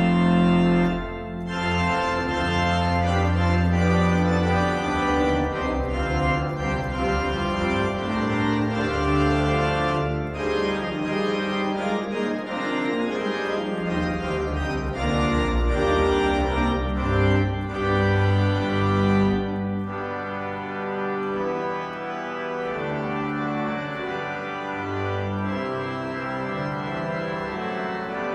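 Rodgers 960 digital organ driving Hauptwerk virtual cathedral pipe-organ sounds, playing full sustained chords over long low bass notes. The deepest bass drops away about two-thirds of the way through and the playing turns a little softer.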